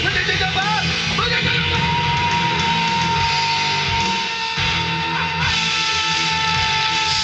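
Loud rock music with guitar. A single high note is held steady from about a second in.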